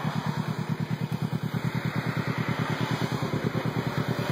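Kawasaki Ninja 300's parallel-twin engine idling through an aftermarket slip-on muffler, a steady run of even exhaust pulses.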